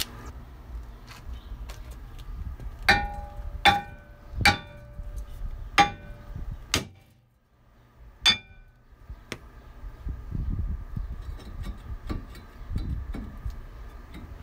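A hammer striking a rusted rear brake rotor to knock it free of the hub: about six sharp metal blows roughly a second apart, each ringing briefly, followed by fainter knocking.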